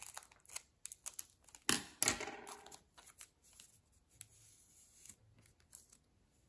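Scissors cutting a baseball card pack's wrapper, and the wrapper crinkling and tearing as it is opened, in a run of sharp crackles that is loudest about two seconds in. The crackles then thin out to a few faint rustles.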